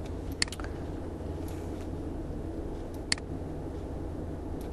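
Three sharp clicks of a computer mouse and keyboard while code is being selected and cut: two close together about half a second in, one about three seconds in. A steady low hum runs underneath.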